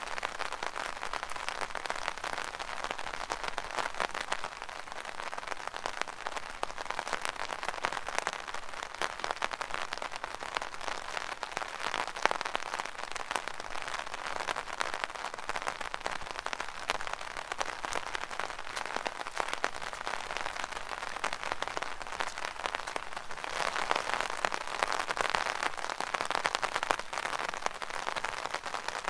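Rain pattering on an umbrella overhead: a dense, steady crackle of countless small drop hits, a little heavier near the end.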